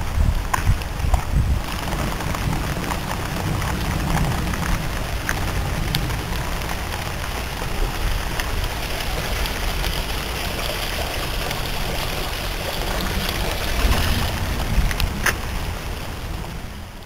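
Heavy rain falling steadily on wet pavement and muddy standing water, a dense hiss with scattered drop ticks and a low rumble underneath; it fades near the end.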